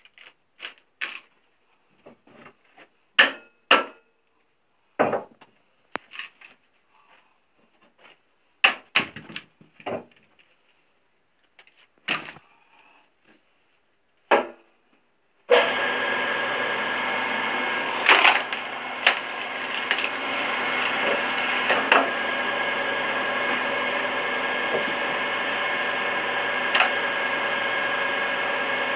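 Electric-motor-driven threaded-cone (screw) log splitter splitting knotty logs: a run of sharp cracks and splintering as the wood bursts apart. About halfway through a steady motor hum with a constant whine comes in suddenly, with a few more cracks over it.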